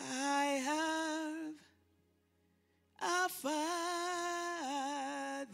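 A woman's voice singing two long phrases of a few held notes each, with a slight waver, pausing for about a second and a half between them.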